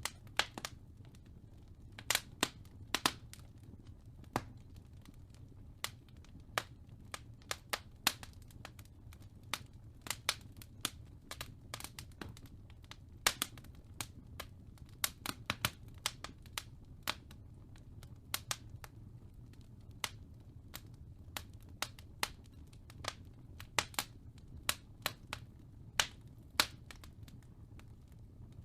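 Wood fire crackling in a fireplace: irregular sharp pops and snaps, one to three a second with some louder ones, over a steady low rumble.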